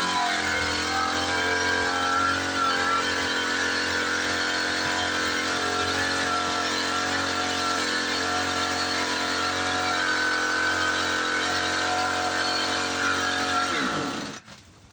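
Small engine of a motorized livestock sprayer running steadily, then shut off near the end, its pitch falling as it winds down.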